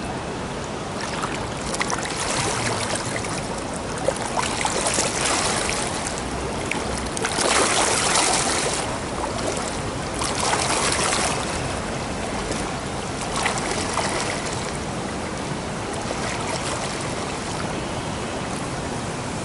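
Pool water splashing and sloshing around a swimmer doing breaststroke, the splashing swelling every two to three seconds with the strokes, loudest about eight seconds in.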